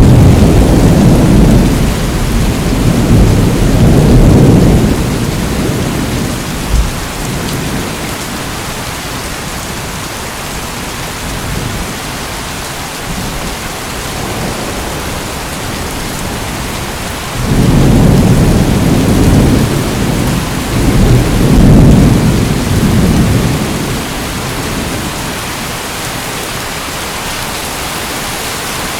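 Steady heavy rain in a thunderstorm, with two rolls of low rumbling thunder: one rumbling at the start and dying away by about six seconds in, the other breaking in suddenly a little past the middle and rolling on for several seconds.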